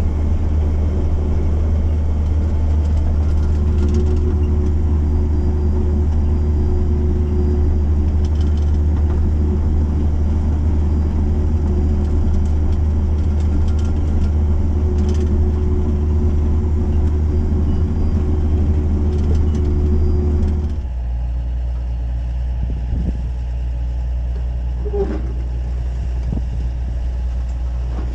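Big Bud tractor's diesel engine running steadily under planting load, heard as a loud, steady low drone with a humming tone inside the cab. About two thirds of the way in, it switches suddenly to a quieter steady drone heard from out at the seeding implement, with a couple of brief knocks from the drill.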